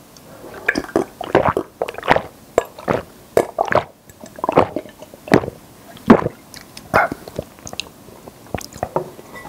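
A person drinking water from a glass in close-miked gulps, a series of separate swallows, quick at first and then more spaced out.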